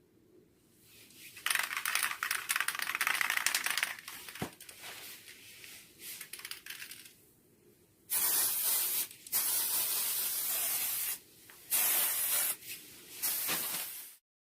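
Aerosol spray can hissing in bursts: a long spray of about two and a half seconds, a few short puffs, then several seconds of spraying broken by brief pauses near the end.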